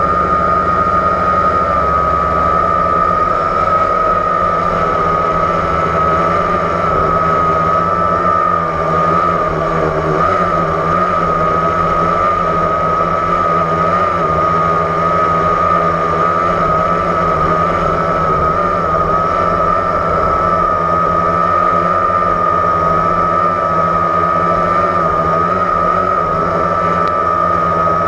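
Blade 350 QX quadcopter's brushless motors and propellers whining steadily, heard from the GoPro mounted on the craft, the pitch wavering slightly as the motors adjust in flight.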